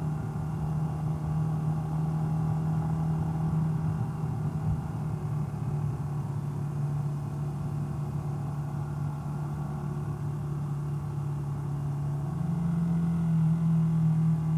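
Honda XLR250R's single-cylinder four-stroke engine running steadily under way. Its pitch sags a little through the middle and rises again about twelve seconds in, where it also gets louder.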